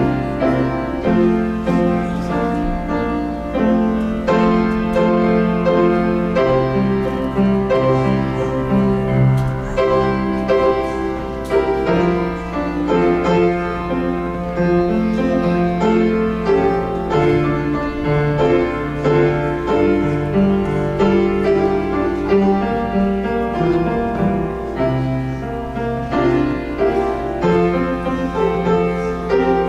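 Slow instrumental offertory music on a keyboard: held chords over long bass notes that change every second or two, over a low steady hum.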